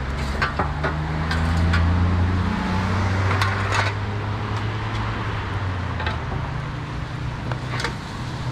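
A motor vehicle engine running close by: a low hum whose pitch wavers slowly. Scattered sharp clicks and scrapes from the wood fires and the metal shovel at the stoves sound over it.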